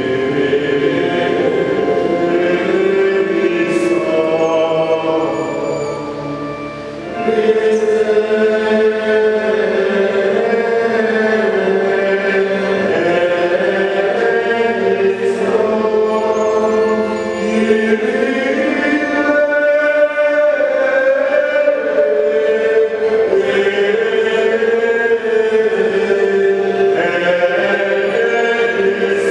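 Church choir singing a liturgical hymn together, with a brief quieter moment about six seconds in before the singing swells again.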